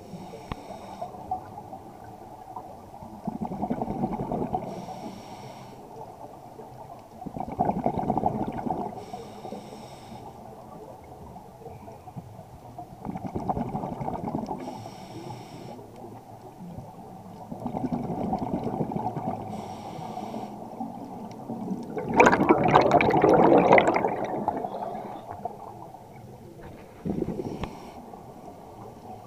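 Scuba breathing through a regulator, heard underwater: a faint hiss with each inhale, then a burst of exhaled bubbles. The breaths come about every four to five seconds, six bursts in all, and the loudest burst is about three-quarters of the way through.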